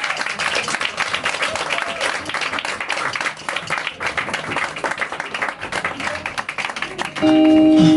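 A small audience applauding, with dense, uneven hand-clapping right after an acoustic song ends. Near the end the applause gives way abruptly to a steady held musical note.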